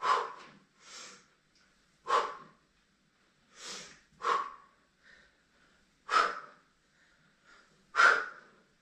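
A person breathing hard while exercising: short, sharp breaths in and out, about seven in all, roughly one every one to two seconds in time with the repetitions.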